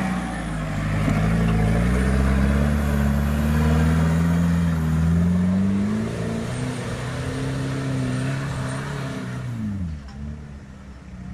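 Off-road 4x4's engine revving hard under load as it climbs a steep, rutted dirt slope, the pitch rising and falling with the throttle. The engine note drops away about ten seconds in.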